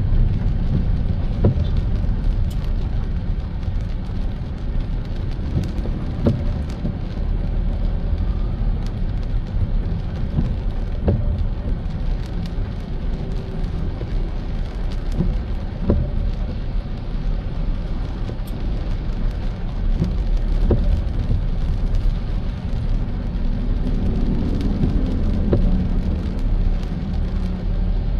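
Car driving on a wet road in the rain: a steady low road rumble with the hiss of rain and spray, and a faint knock about every five seconds.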